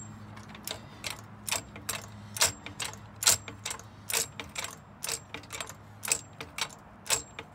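Hydraulic floor jack being pumped by its handle to lift a car: sharp metallic clicks, mostly in pairs, one pair per stroke, a little under a stroke a second.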